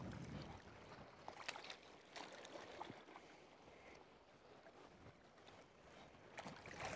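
Faint sloshing of shallow sea water around a wading angler's legs and hands as he reaches down to land a hooked fish, with a few short splashes.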